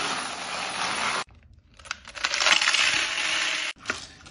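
Vibratory tumbler running with a steady rattling hiss as brass cases churn in the cleaning media. After a short break, brass cartridge cases clatter and jingle in a rotary media separator's basket, and a single sharp click comes near the end.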